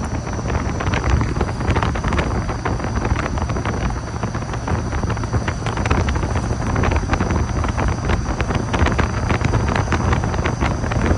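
Steady wind noise buffeting the microphone, with a low rumble and a dense crackle.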